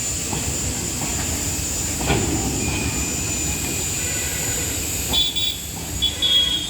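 Train rumbling along the track. There is a sharp knock about two seconds in and two brief high squeals near the end.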